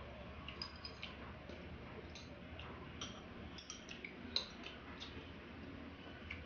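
Eating at a table: scattered small clicks and taps of chopsticks on plates and bowls, with one sharper click about four seconds in, over a low steady hum.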